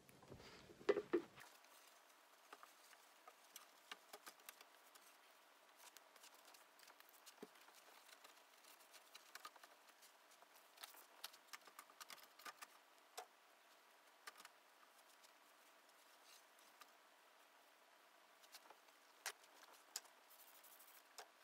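Faint, scattered short clicks and squirts of a trigger spray bottle with light handling taps as a glass terrarium is sprayed down.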